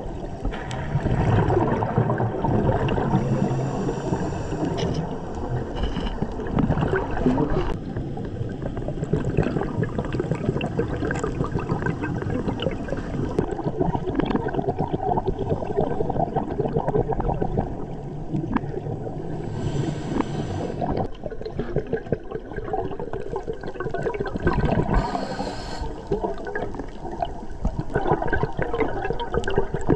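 Muffled underwater noise of a scuba dive: a constant rumbling gurgle of a diver's regulator and exhaled bubbles, with two short hisses in the second half.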